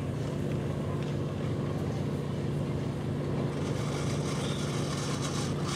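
Tour boat's engine running steadily, an even low hum at one unchanging pitch, with wind hiss growing on top from about halfway through.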